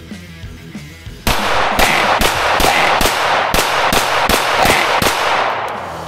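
Rapid string of about ten 9mm pistol shots from a Staccato XC, starting suddenly about a second in, under loud rock music with distorted guitar that fades near the end.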